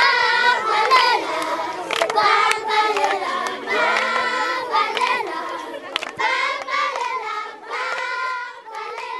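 A group of children singing together, with hand claps over the singing. The singing fades away toward the end.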